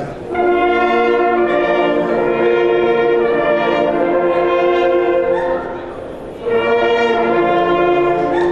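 An ensemble of German hunting horns playing together in harmony: long held chords, a short break about six seconds in, then the next phrase.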